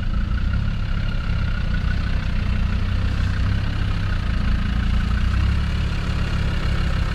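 Off-road 4x4 engine running steadily at low revs, a low, even engine sound while the vehicle crawls slowly over a muddy track.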